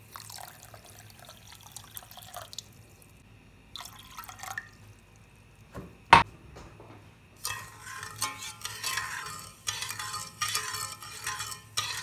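Water poured into a stainless steel pot of sugar, then a metal spoon stirring and scraping the sugar and water against the bottom of the pot in uneven strokes. A single sharp clink about six seconds in.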